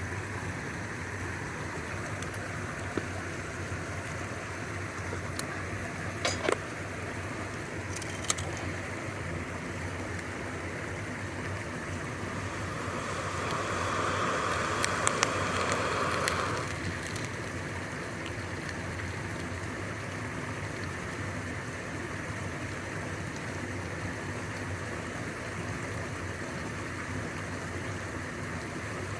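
Steady rushing of a wood fire burning in a Petromax Fire Kettle's chimney, with a few sharp crackles. About halfway through it swells into a louder hiss for a few seconds.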